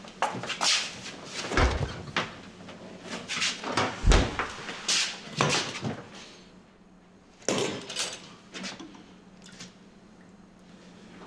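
Kitchenware being handled on a counter: a series of sharp clacks and knocks, with two heavier thuds about a second and a half and four seconds in.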